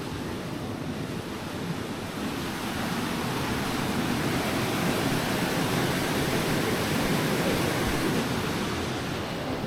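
Steady rushing of a large waterfall: a dense, even noise that grows a little louder through the middle and eases near the end.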